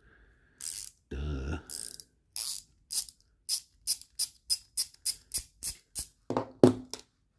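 Ratcheting screwdriver clicking steadily as a knife's pivot screw is backed out, about four clicks a second, ending in two louder knocks.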